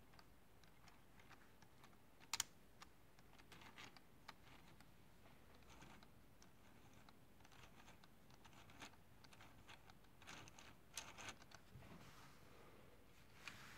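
Faint clicks and light rattles of plastic LEGO Technic gears and parts being moved by hand, with one sharper click about two seconds in and small scattered clusters of clicks later on.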